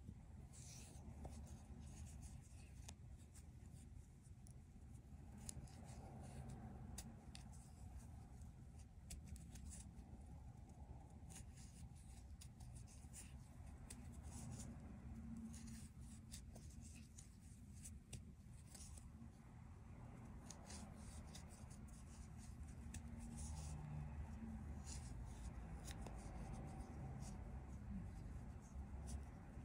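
Faint scratching and light ticks of a crochet hook drawing thin yarn through stitches, over a low steady hum.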